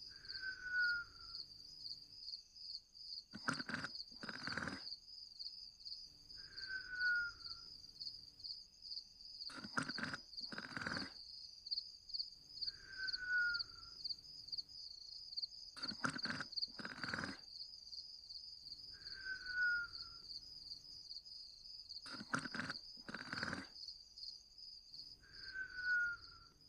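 Someone asleep, snoring and whistling: each breath brings two short snores, then a short whistle that falls slightly in pitch, repeating about every six seconds. Steady cricket chirping runs underneath.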